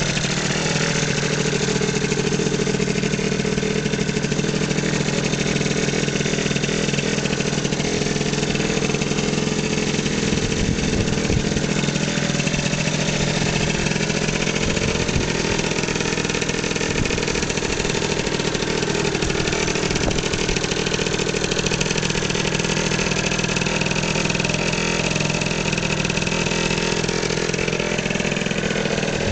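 Yamaha BW's scooter engine running steadily at idle, its note holding level throughout.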